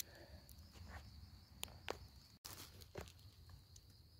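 Faint steady high chirring of insects, with a few soft crackles of dry leaf litter underfoot.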